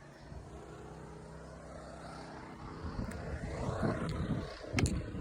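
A steady, low engine hum holding one pitch, then fading into scuffling and handling noise with a sharp click near the end.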